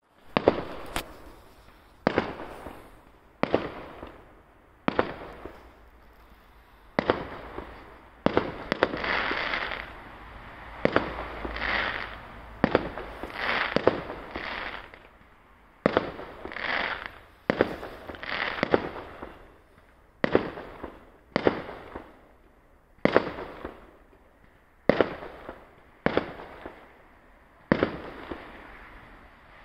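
Fireworks going off in a steady series, a sharp bang every one to two seconds, each echoing and fading away. In the middle of the run several bangs trail off in longer, noisier tails.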